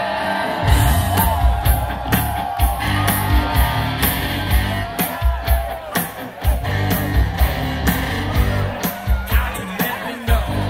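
Live band kicking into an up-tempo rock and roll number about a second in, with heavy bass and a steady drum beat with cymbals. A large crowd cheers and whoops over it.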